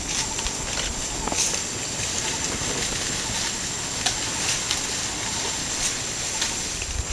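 Steady hiss of outdoor ambience with a constant high whine. A few faint crackles and snaps stand out, around one and a half seconds in and again around four seconds in.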